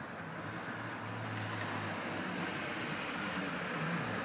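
Distant Eurocopter EC135 police helicopter circling: a steady rotor and engine drone that grows slightly louder, mixed with road traffic noise.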